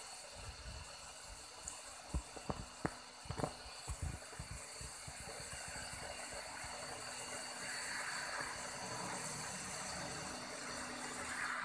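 Steady rain falling, an even hiss that grows a little louder after about eight seconds. A few sharp knocks and low thumps come in the first few seconds.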